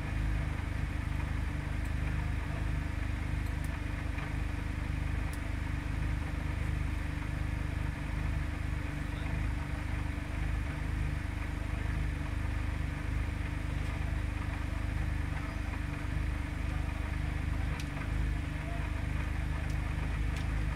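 Radical RXC's engine idling steadily in neutral, a constant low running note with no revving.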